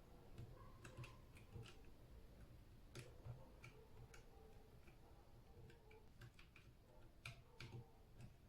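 Faint, irregular clicking of a mechanical keyboard key pressed over and over, a freshly cleaned and reinstalled switch being tested for missed presses.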